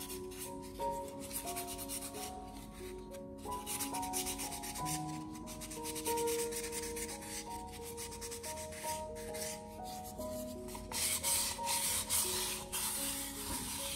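Sandpaper rubbing over the surface of a cast cement flower pot, smoothing it after demoulding: a rough, scratchy hiss that grows louder about eleven seconds in.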